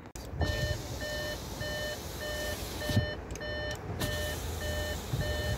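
Short electronic warning beeps repeating steadily, about one every 0.6 seconds, over low rumbling handling noise, with a knock about three seconds in.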